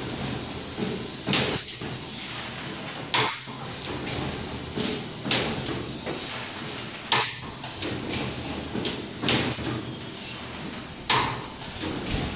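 DPP-140 flat-plate blister packing machine running: a sharp clack about every two seconds as it cycles through its strokes, with lighter clicks in between, over a steady mechanical running noise.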